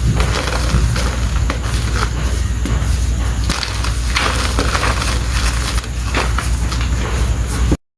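Chalk bricks being crushed by hand, a dense run of crunching and crumbling crackles over a low rumble. The sound cuts off suddenly near the end.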